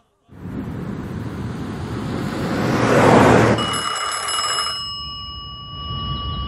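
A rush of noise swells up to its loudest about three seconds in and cuts off. A telephone then rings once for about a second, and the next ring starts at the very end.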